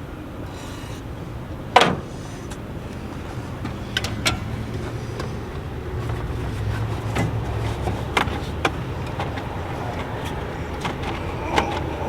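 A vehicle engine running with a steady low rumble, with several sharp knocks, the loudest about two seconds in.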